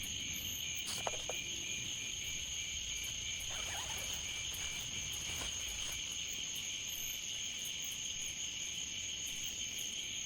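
A chorus of crickets and other insects chirping: several high, unbroken trills at once, one of them pulsing at an even rate, over a low, steady background hiss.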